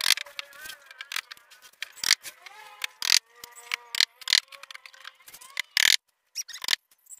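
Irregular sharp clicks and taps of hand-tool work on a plywood ring.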